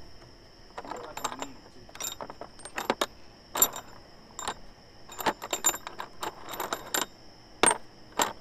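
Metal parts and hand tools clinking and clattering in irregular sharp clicks with a bright ring, as bolts are threaded into and handled on a V8 engine being torn down.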